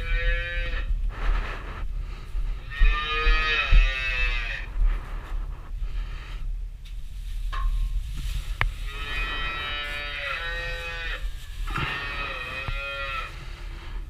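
A young calf bawls several times, each call a second or two long and bending in pitch. Between the calls there are a couple of light knocks.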